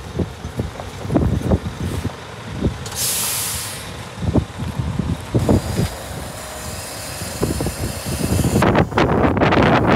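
Wind buffeting the microphone in irregular low thumps, with a short sharp hiss about three seconds in and a dense crackling rush near the end.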